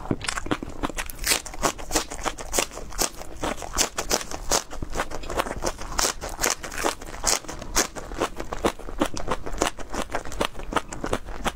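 Raw green onion stalks being bitten and chewed: a dense, continuous run of crisp crunches and snaps.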